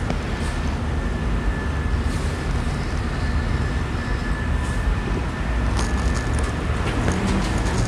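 Steady background rumble with a faint, high, steady whine running through it.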